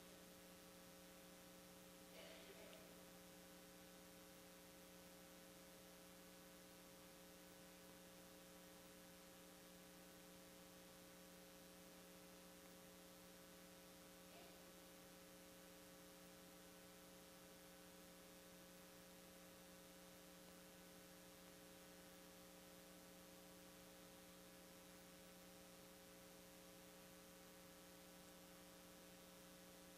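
Near silence: room tone with a faint, steady electrical hum, broken only by two faint brief sounds, about two seconds in and near the middle.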